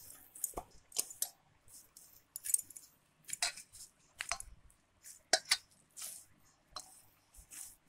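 Hands kneading soft, oiled bhatura dough in a steel bowl: irregular squishes and slaps of the dough with light metallic clinks against the bowl, about ten short sharp taps spread unevenly.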